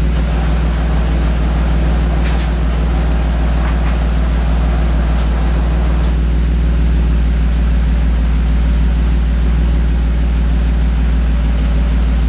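2003 Mazda6s's 3.0-litre V6 idling steadily through an aftermarket exhaust: shorty header, Y-pipe and mid-pipe with a high-flow metal-core catalytic converter.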